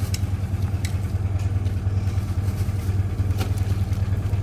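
A vehicle engine idling steadily with an even low hum and a few faint clicks.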